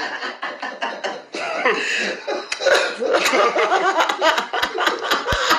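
Men laughing hard, broken by coughs. Sharp clicks come in during the second half.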